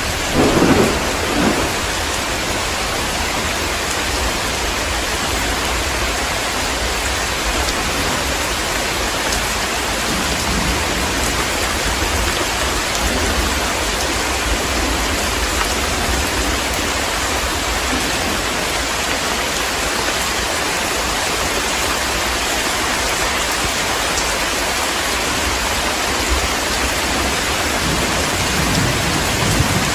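Heavy rain falling steadily, with a short rumble of thunder about a second in and another beginning near the end.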